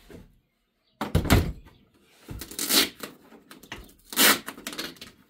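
Hard plastic parts of a cat exercise wheel being worked apart by hand, with nylon wedge fasteners pulled free: three loud scraping, knocking noises, each under a second long, the first after a short pause.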